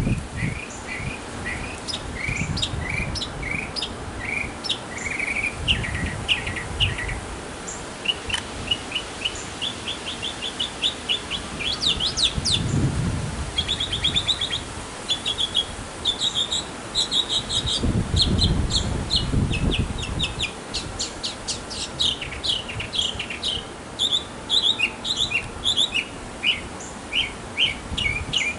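Northern mockingbird singing a long, varied song. Short phrases are each repeated several times before the bird switches to a new one, some of them fast, high trills.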